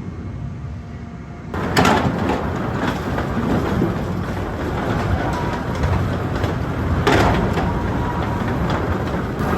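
Sawmill log-handling machinery running with a steady rumble and clatter, which gets sharply louder about a second and a half in. Heavy clanks come about two seconds in and again about seven seconds in.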